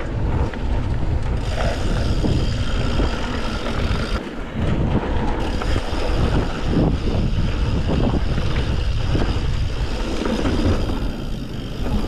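Wind noise on the microphone while a mountain bike rides a rough dirt trail, with tyres rolling and the bike rattling and knocking over the bumps.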